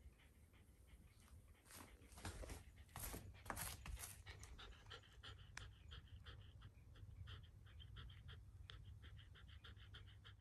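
Shiba Inu panting, quick short breaths in an even rhythm, with a few louder rustling sounds about two to four seconds in.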